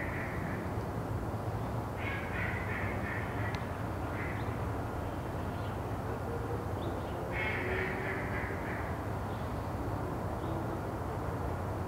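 Bird calls in three or four short bursts of rapid repeated notes, each about a second long, over a steady low background hum.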